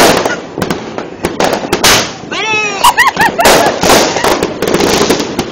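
Aerial fireworks bursting: a dense run of sharp bangs and crackles.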